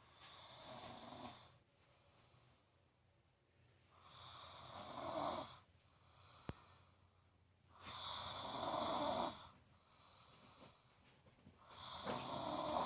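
Snoring in slow, even breaths, one about every four seconds. Each snore lasts about a second and a half and grows louder toward its end, with a quiet gap between. Three full snores are heard, and a fourth begins near the end.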